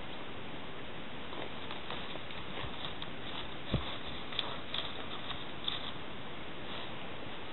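Soft hoof thuds and light clicks of two young horses stepping about on grass pasture, over a steady hiss. The clearest thud comes a little before halfway.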